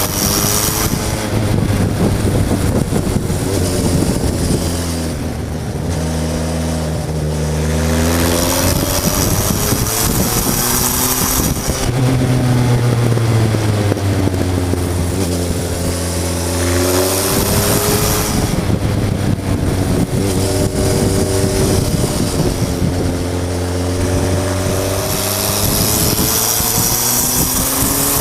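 Suzuki GSF 1200 S Bandit's inline-four engine heard close up from the tank while riding, the revs repeatedly rising under throttle and falling back as the rider eases off and shifts. A rushing hiss of wind swells at the faster stretches.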